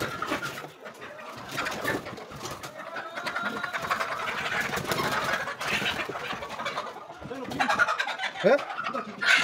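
Brown laying hens clucking and squawking in alarm as they are caught by hand, with wings flapping and scuffling in between; short pitched squawks come close together near the end.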